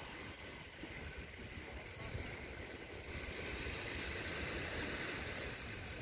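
Small waves lapping and washing at a sandy shore, a steady wash of water with a low, uneven wind rumble on the microphone.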